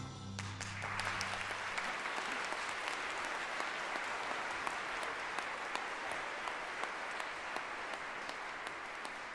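Audience applauding as the last chord of the choir's song dies away. The clapping starts about half a second in and eases slightly near the end.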